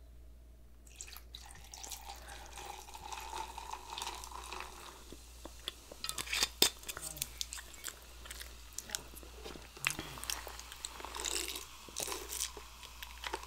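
Sparkling juice poured into a glass, a steady trickle for about four seconds, followed by close-miked chewing and mouth sounds with sharp clicks.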